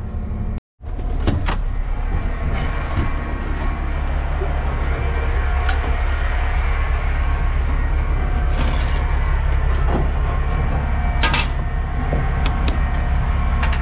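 Semi-truck diesel engine idling steadily, with a few short clicks and knocks over it. The sound cuts out completely for a moment just under a second in.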